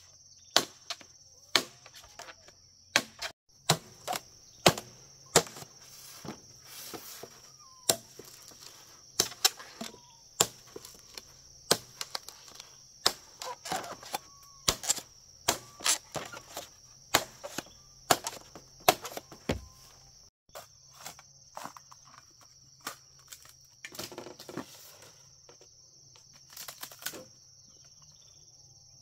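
Repeated sharp knocks of a hand tool at work, about one or two a second with uneven pauses, over a steady high-pitched drone of insects.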